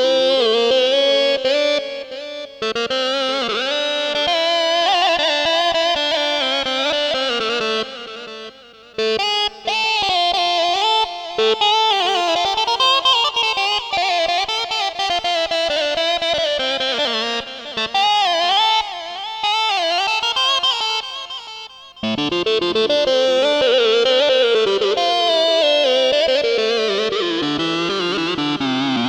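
Korg Krome keyboard playing a Balkan/Turkish ethnic sound-pack patch: a single melody line with pitch bends and vibrato, breaking off briefly about nine seconds in and again near 22 seconds before a new phrase starts.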